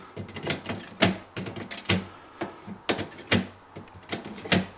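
Snips clicking against the aluminium lugs of a Samsung RS21 fridge evaporator as they grip and twist the lugs away from the defrost heater element: a run of short, irregular metallic clicks and taps.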